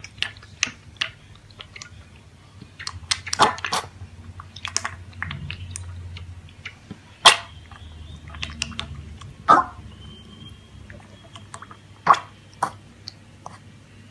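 A pet chewing: irregular sharp crunches and clicks, the loudest about seven, nine and a half and twelve seconds in, over a faint low hum.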